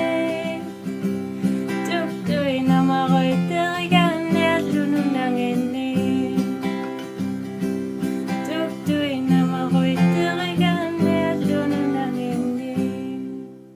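Music with plucked acoustic guitar and a moving melody line above steady notes, fading out near the end.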